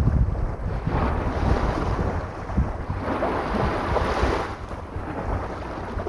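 Sea waves washing onto the shore, swelling and easing, with wind buffeting the microphone in a low, gusty rumble.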